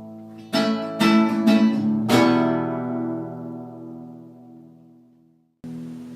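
Acoustic guitar strummed a few times, ending on a final chord that rings out and slowly dies away in an empty room's echo. Near the end a steady low hum starts abruptly.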